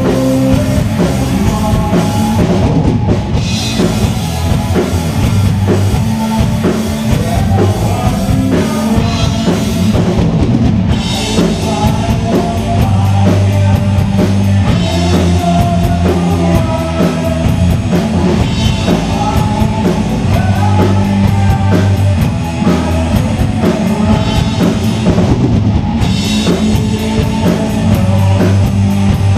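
A rock band playing live: electric guitar, bass guitar and drum kit together.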